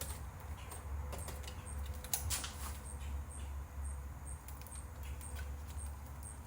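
Scattered small clicks and scratches of VCR parts being handled and worked loose, loudest in a cluster about two seconds in, over a steady low electrical hum.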